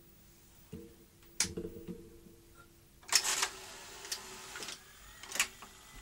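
Philips N1700-type video cassette recorder being started again: clicks and clunks from its controls and tape mechanism over a low motor hum. A faint steady high tone comes in near the end.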